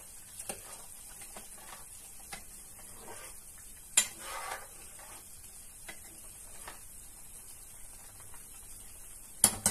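Steel ladle stirring chilli paneer in a frying pan: soft scrapes and light clinks against the pan, with one sharper clink about four seconds in and a couple more near the end.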